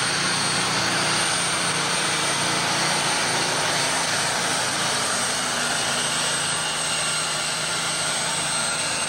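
Ford pulling tractor's diesel engine running flat out under heavy load as it drags a weight-transfer sled, a loud, steady drone.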